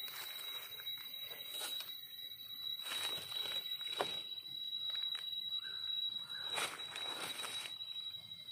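A steady high-pitched tone held on one note throughout, with scattered rustles and scrapes of dry leaf litter and soil and a sharp click about four seconds in; the rustling grows near the end as a hand with a knife reaches in among the mushrooms.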